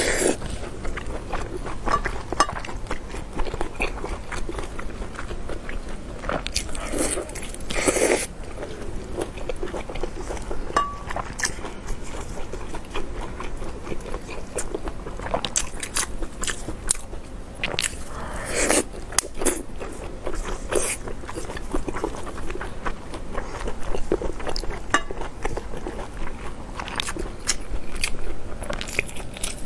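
A person biting and chewing meat close to the microphone, with irregular wet bites and mouth clicks throughout.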